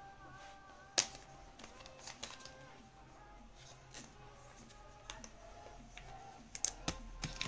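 Trading cards being handled and slid into plastic sleeves: light clicks and taps, with a sharp click about a second in and a few quicker ones near the end. Faint background music runs underneath.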